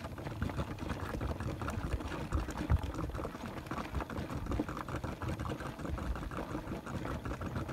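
Coolant boiling and gurgling in a car's expansion tank, an irregular crackly bubbling that goes on without a break: the sign of an overheating engine.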